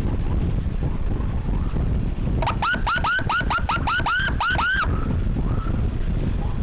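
Electronic emergency siren on a fast yelp: about two and a half seconds of quick rising-and-falling sweeps, roughly four or five a second, starting a couple of seconds in and cutting off abruptly. Underneath is a steady low rumble of wind on the microphone and vehicle noise while riding.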